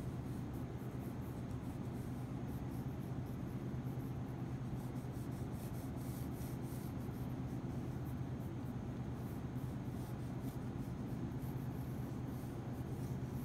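Pencil sketching lightly on thick watercolor paper: faint scratchy strokes that come and go, over a steady low hum.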